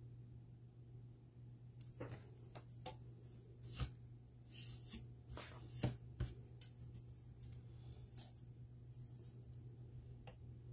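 Hands handling cardstock and a roll of adhesive foam tape on a craft desk: a run of light rustles and taps, loudest about four and six seconds in, over a faint steady low hum.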